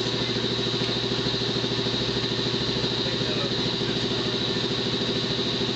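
A motor running steadily with a rapid, even pulse and a constant low hum.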